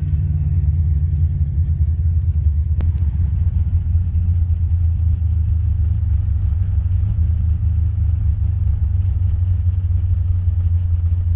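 Steady low rumble of a car heard from inside its cabin, with one sharp click about three seconds in.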